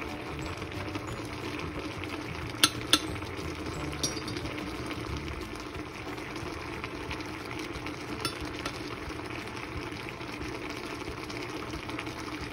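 Braised mackerel simmering in its sauce in a steel pan, a steady bubbling hiss. A metal ladle clinks against the dish a few times, twice in quick succession near three seconds in and once or twice more later.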